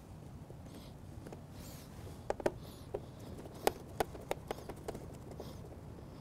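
Small screwdriver pushing and turning a screw through a thin plastic mounting block, giving a string of sharp, irregular clicks from about two seconds in.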